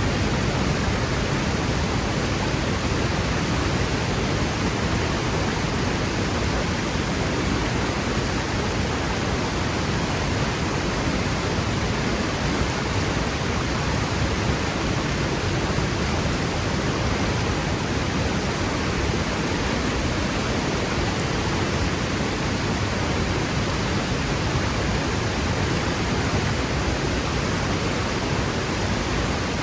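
Waterfall pouring and crashing onto rock: a steady, unbroken rush of falling water.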